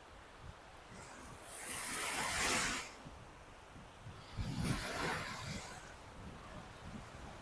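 Lake Michigan waves breaking on a beach. One wave swells into a loud hiss about two seconds in and drops away near three seconds. A second lands with a low thump about four and a half seconds in and hisses out.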